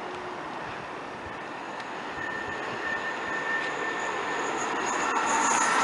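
A freight train approaching along the line, its running noise building steadily louder, with a thin high steady whine coming in about two seconds in.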